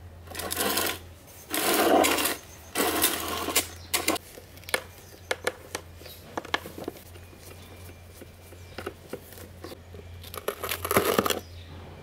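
A screwdriver working at screws in an old table fan's plastic base: several short harsh scraping rasps, then a run of small sharp metal clicks and ticks, with another rasp near the end. A low steady hum lies underneath.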